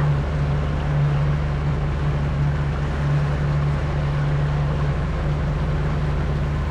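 Motorboat engine running steadily under way, a constant low hum with the rush of wind and water over it.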